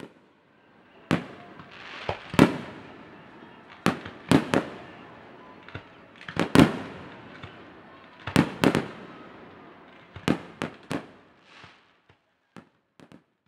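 Aerial fireworks display: a series of sharp bangs from shells bursting, often two or three close together, each with a trailing echo. The bursts thin out to a few faint pops near the end.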